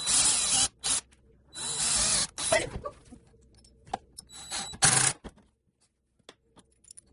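Cordless drill drilling into a wooden board in several short bursts with a thin motor whine, separated by pauses.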